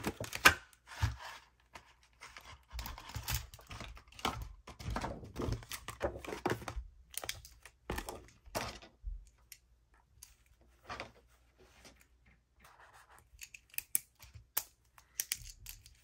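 Clear plastic case of Zebra Clickart retractable marker pens crackling and rustling as it is opened, with the pens pulled out and set down on a desk in a run of light clicks and taps. It goes quieter about two-thirds of the way through, then a few more clicks come near the end.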